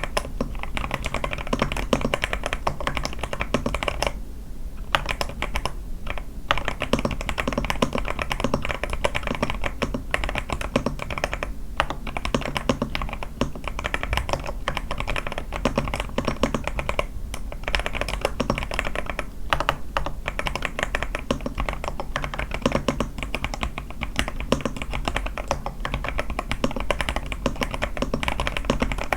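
A81 mechanical keyboard with lubed sky switches, lubed stabilizers and a tape mod, typed on quickly and continuously: a steady stream of keystroke clacks, with a brief pause about four seconds in.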